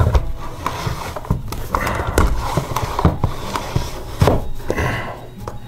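Irregular knocks, clicks and scrapes of a round flush-mount ceiling light being pressed up and twisted into place on its mounting against a wooden board ceiling.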